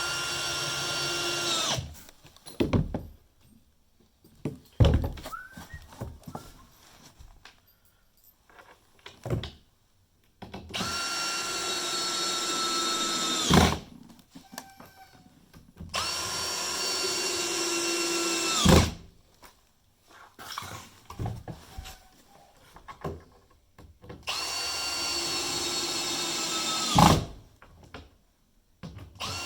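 Power drill driving screws through floorboards into the joists: four runs of a steady whine, each dropping in pitch near its end as the screw pulls tight, closing on a sharp knock. Clicks and knocks between the runs.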